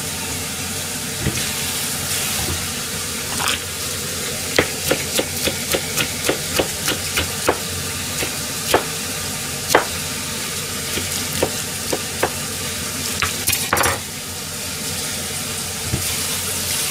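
Pork belly frying and sizzling in a pan, with a kitchen knife chopping green pepper on a plastic cutting board: a quick run of sharp chops, about three a second, from about four and a half to ten seconds in, then a few scattered knocks.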